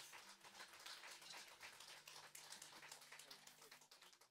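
Faint audience applause, a dense patter of hand claps that thins out and fades away near the end, with a low steady hum underneath.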